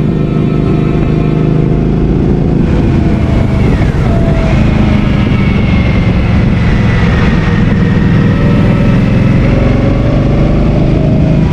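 Motorcycle engine running steadily on the road, with a short falling whine about three seconds in.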